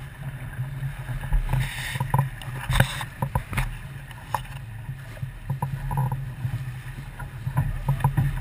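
Sailboat under way during a race: water splashing along the hull over a steady low rumble, with irregular knocks.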